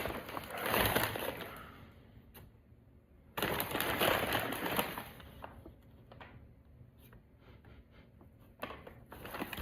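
Handling noises: two stretches of rustling, then a run of light clicks and taps.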